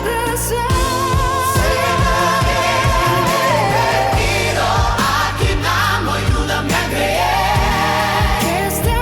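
Christian worship ballad: a voice sings long held notes with vibrato over bass and a steady drum beat.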